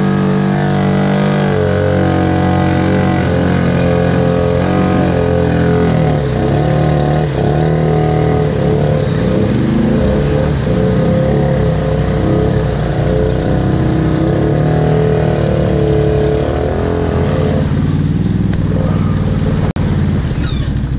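ATV engine running continuously, its pitch rising and falling with the throttle, with a brief drop-out near the end.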